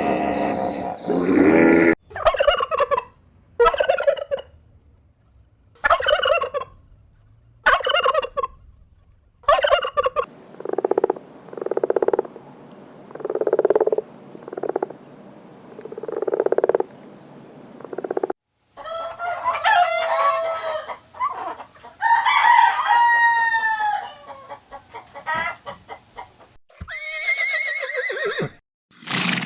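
Poultry calling in a series of separate clips: about six short, sharp calls roughly two seconds apart, then a run of lower repeated calls, then gliding, squawking calls near the end.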